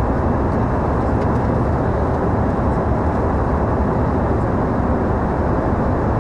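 Passenger airliner cabin in flight: a steady, unbroken rush of engine and air noise, heaviest in the low and middle range, with no change in level.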